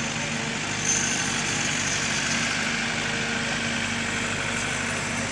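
An engine idling steadily, a constant even hum with no change in speed.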